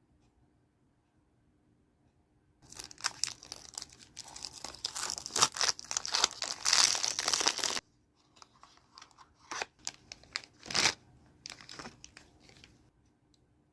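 Toy car packaging being handled and opened: a spell of dense crinkling and tearing that stops abruptly, then a few scattered crinkles.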